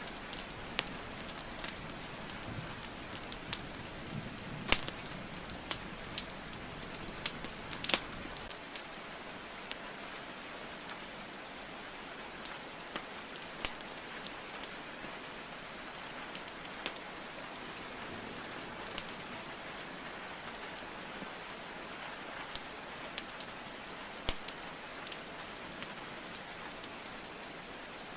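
Steady rain hiss with the sharp crackles and pops of burning logs in a fireplace. The loudest pops come about five and eight seconds in, and the crackling thins out after that.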